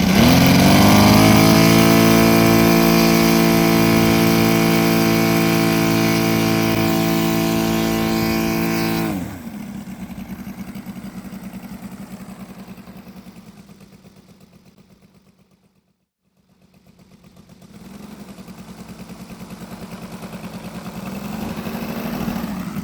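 Radial piston aircraft engine opened up, its pitch climbing quickly, then held at a steady high power note for about nine seconds before being throttled back sharply. The quieter running fades out to silence, then an engine at idle, with a pulsing beat, fades back in near the end.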